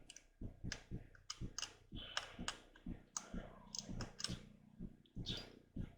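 Light, irregular clicks and taps of small plastic model-kit parts being handled and test-fitted on a workbench, a few per second.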